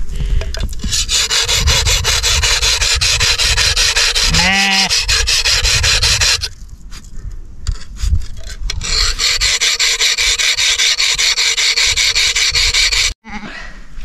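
Rapid, rasping strokes of a hand sickle sawing through a sheep's fleece during shearing, in two long stretches with a short pause between them. A sheep bleats once partway through.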